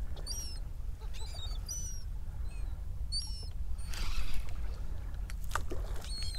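A flock of seabirds calling overhead: short, high, sharp calls repeating over a low steady rumble, with a few sharp clicks near the end.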